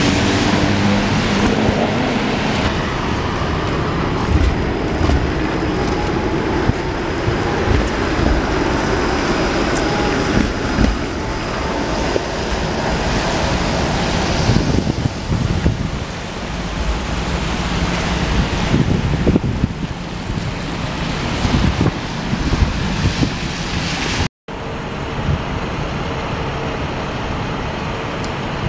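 Downtown street traffic: cars passing on wet pavement, with wind on the microphone. The sound cuts out briefly about 24 seconds in and comes back as a steadier hum.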